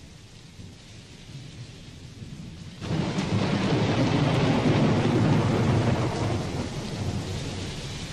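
Rain falling, with a thunderclap breaking in suddenly about three seconds in and rumbling on, loudest midway and slowly dying away. These are the recorded storm effects that open a rock song, before the instruments come in.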